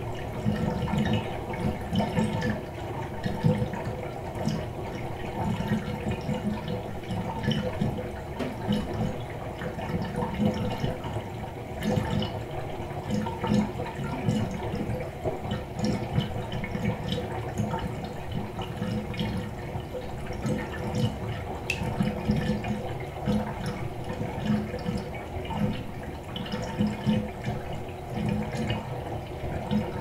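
Water draining out of a fiberglass bathtub: a steady, uneven low gurgle down the drain, with occasional drips.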